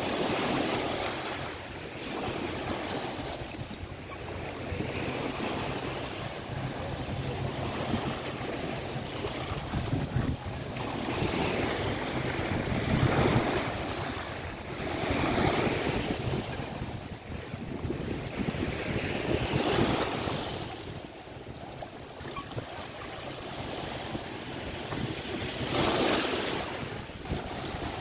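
Small sea waves breaking and washing over a pebbly shore, swelling and falling back every few seconds, with wind buffeting the microphone.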